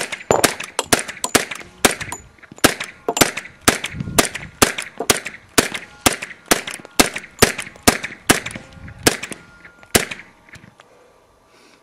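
Suppressed pistols fired in a long, rapid string of shots, two to three a second, the last one about ten seconds in.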